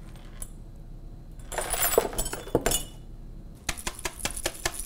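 Shards of broken glass tipped from a plastic dustpan into a cardboard broken-glass box. A clinking slide of glass comes about one and a half seconds in, then a quick run of sharp clinks and taps near the end as the last pieces are knocked off the pan.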